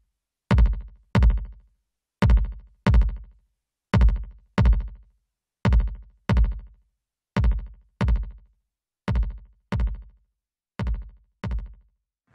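Drum-machine loop of deep electronic kick-drum hits in pairs, about 0.7 s apart, a new pair every second and a half or so, played through a software parallel compressor. The hits get a little quieter over the later pairs.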